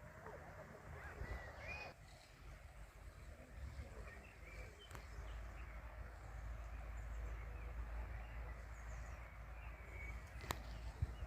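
Birds chirping and calling faintly over a low steady rumble, with the calls busiest in the first couple of seconds. A single sharp click comes about ten seconds in.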